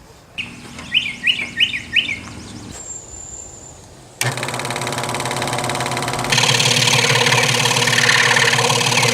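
Electric scroll saw switched on about four seconds in and running with a steady buzzing chatter, getting louder about two seconds later. Before it starts, four short high chirps sound over a low hum.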